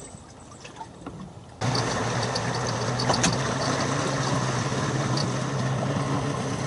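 Boat engine idling with a steady low hum, cutting in abruptly about a second and a half in; before that only faint small clicks.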